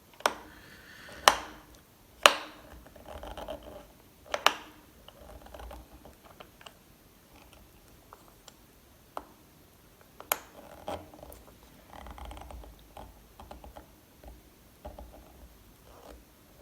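Small metal lock parts and tools clicking and tapping as they are handled and set down. Several sharp clicks in the first few seconds, then softer clicks and light rattling.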